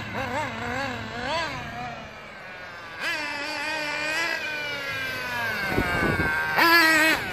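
Nitro engine of a Losi 8IGHT 1/8-scale RC buggy, geared with a 14-tooth clutch bell, revving up and down as the buggy is driven. From about three seconds in it holds a long whine that slowly drops in pitch, then revs up sharply near the end.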